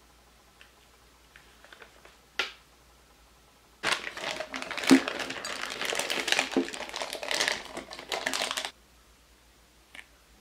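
Thin plastic piping bag crinkling for about five seconds, starting about four seconds in, as it is opened out and folded over the rim of a glass mug. Before that come a few small clicks and one sharp tap while a piping tip is fitted into the bag.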